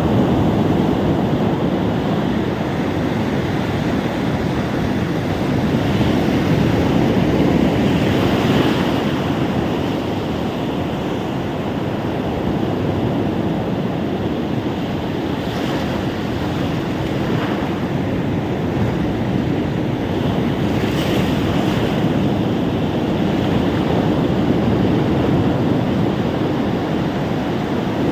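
Ocean surf on a beach: a continuous rushing wash of waves that swells and eases, with a few brief hissing spills of breaking water.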